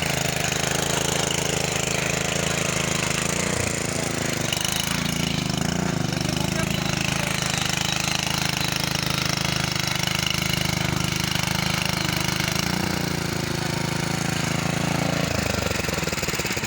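Engine of a godi hoeing machine running steadily under work, its pitch shifting down near the end.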